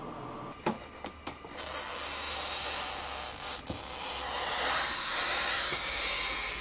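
Handheld glass cutter scoring a sheet of picture-frame glass along a metal straightedge: a steady, high hiss from about a second and a half in, after a few light clicks.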